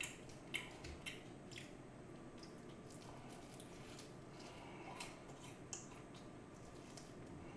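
Faint mouth sounds of a person biting and chewing BHC Puringkle fried chicken: a few sharp crisp clicks in the first couple of seconds, then quiet wet chewing.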